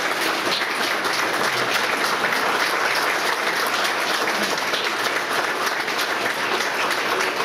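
Crowd in a meeting room giving a standing ovation: steady applause from many hands.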